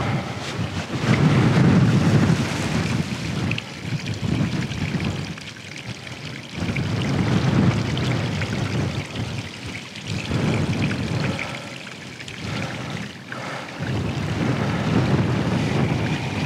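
Wind gusting across the microphone: a low rumble that surges and dies away every couple of seconds.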